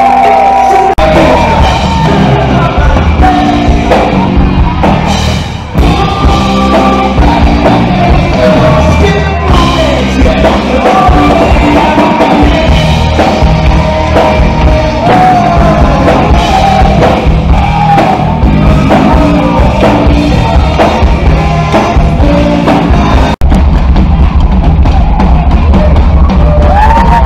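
Hard rock played live and loud by a full band on drum kit and amplified instruments, with a lead line that bends up and down in pitch. There is a sharp break about 23 seconds in, after which the low end is heavier.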